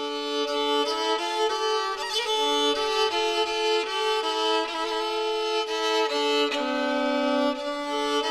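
Background music: a violin melody in held notes, often two sounding together.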